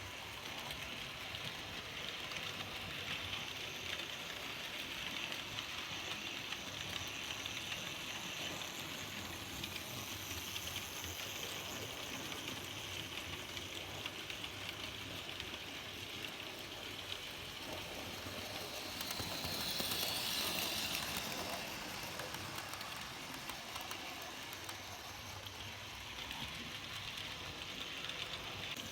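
N gauge model train running on track: a steady rolling hiss of small wheels on rail with fine rapid clicking and motor whir. It swells louder for a couple of seconds about two-thirds of the way through.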